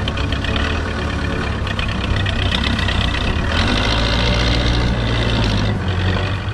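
Diesel engine of a Case 580K backhoe loader running as it drives with a round bale on its front loader, steady and low, growing louder with a strong hiss for a few seconds in the middle before easing near the end.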